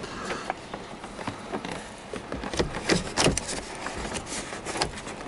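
Plastic dashboard speaker grille on a 1988 Chevy S10 Blazer being pressed and worked into place by hand, giving a run of irregular light clicks and knocks, thickest about halfway through.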